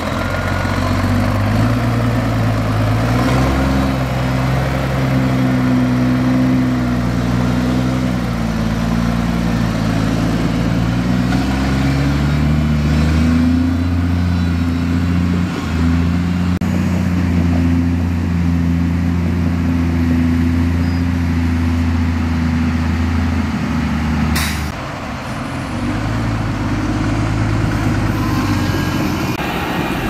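Heavy diesel engine of earthmoving machinery running hard, its speed rising and falling in steps as the machine works under load. About 24 seconds in there is one short, sharp sound, and the engine dips briefly before picking up again.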